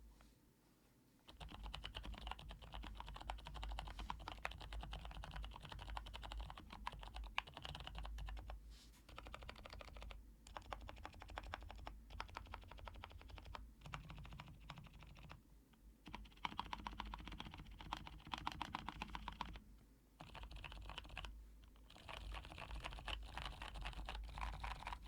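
Fast typing on a Cherry G80-3000 mechanical keyboard with jailhouse-modded Cherry MX Blue switches (blue stems with O-rings, lubed, plateless mount). It makes a dense stream of key clicks in bursts, with several short pauses between them.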